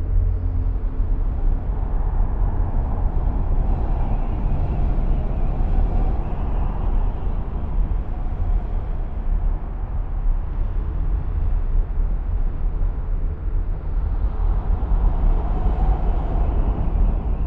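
Steady low rumble with a hissy haze above it, and faint held tones fading out in the first few seconds.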